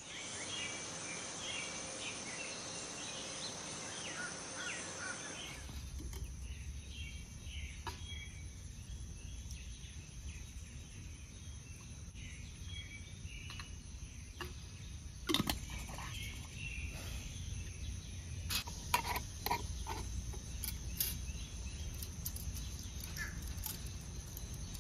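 Backyard ambience of birds chirping and a steady high insect buzz, with a few sharp clinks of glass jars and lids being handled and set down on a metal stool, the loudest about halfway through and in the second half.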